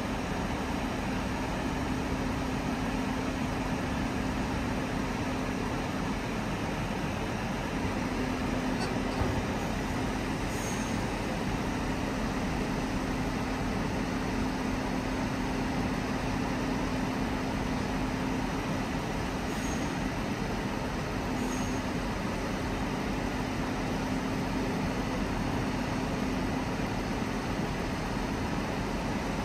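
Crane engine running steadily: a constant mechanical drone with a steady hum held under it.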